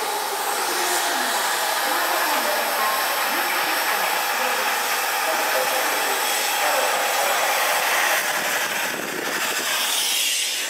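Meitetsu electric commuter train pulling out of the platform and starting to roll past: a steady, loud hissing noise with faint rising motor tones as it picks up speed.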